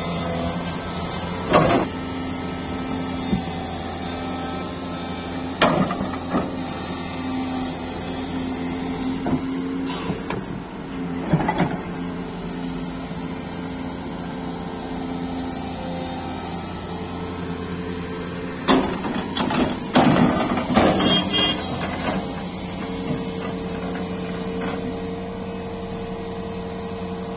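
Volvo EC480DL crawler excavator's diesel engine running steadily under digging load. Several loud metallic knocks and scraping clatter come from the bucket working the earth. A higher steady whine joins near the end.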